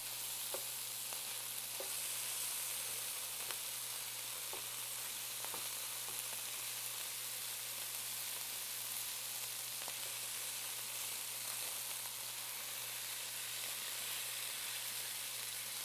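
Ground beef sizzling steadily as it browns in a skillet. In the first several seconds a utensil gives a few light taps and scrapes as it chops the meat into crumbles.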